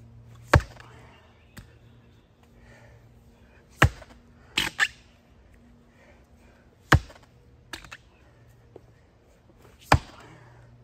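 Fiskars splitting tool striking a log round: four heavy chopping blows about three seconds apart, with a lighter double knock between the second and third. The log has not yet split.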